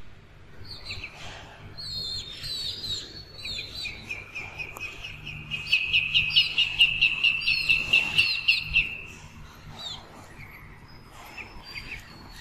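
Baby chicks and ducklings peeping: scattered high peeps, then about halfway through a fast run of loud peeps, about four a second, for some three seconds before they go back to softer, scattered peeps.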